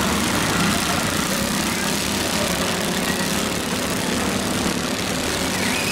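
Several garden tractor and riding lawnmower engines running together in a steady, overlapping drone.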